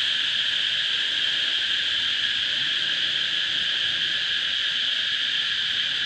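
Steady, shrill insect chorus, an unbroken high buzz that holds at an even level.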